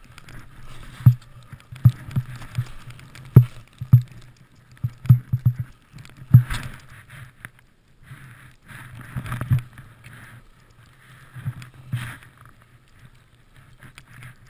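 Skis moving through deep powder snow: irregular swishes of snow spray and many dull thumps as the skis bounce and turn, with a quieter pause about seven seconds in.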